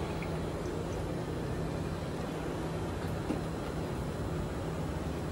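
Airport self bag-drop machine's conveyor running with a steady low hum as it carries a suitcase away.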